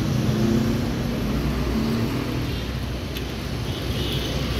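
Steady low rumble of motor-vehicle traffic on a street.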